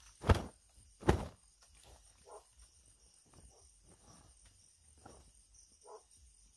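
Two loud thumps about a second apart, then a steady high drone of night insects with short faint chirps every second or so.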